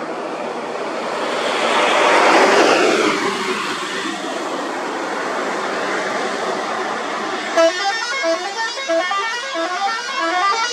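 A passenger bus drives past close by, its engine and tyre noise swelling and then falling away. About two-thirds of the way in, a musical horn plays a quick tune of stepping notes, repeating for about three seconds.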